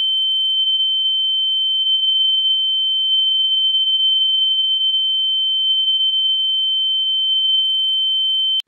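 A long censor bleep: one steady, high-pitched beep tone held without a break, cutting off suddenly near the end.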